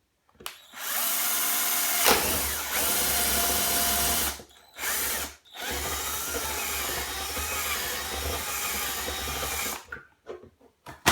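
Power drill boring a hole through the wall of a plastic tub: a long steady run, a brief burst, then a second long run that stops near the end.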